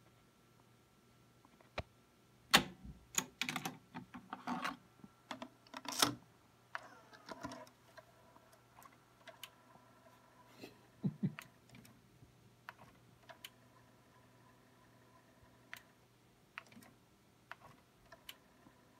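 Irregular mechanical clicks and clunks from cassette decks and a cassette head demagnetiser being handled: transport keys pressed and the cassette moved. They come in a dense run early on, the loudest about two and a half seconds in, then a duller thud near eleven seconds and a few faint ticks after.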